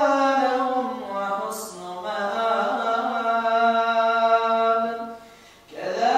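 An imam's voice reciting the Quran aloud in a melodic chant, holding long drawn-out notes. The voice fades near the end and resumes on a new phrase.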